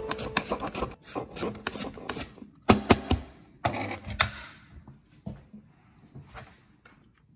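Fennel bulb being sliced on a plastic mandoline slicer: a series of uneven rasping strokes as the bulb is pushed across the blade, with light clicks and knocks, thinning out to a few faint taps near the end.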